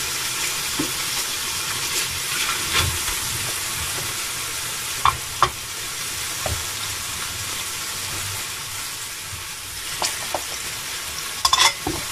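Pieces of monkfish sizzling steadily as they brown in hot oil in a stainless steel frying pan. A few sharp clicks come through the sizzle, two about five seconds in and a quick cluster near the end.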